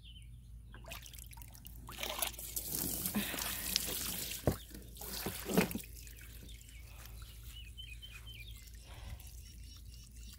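Water running from a garden hose into a plastic horse water trough, trickling and splashing as the trough fills. The flow is loudest through the first half and then runs on more quietly, with a couple of sharp knocks around the middle.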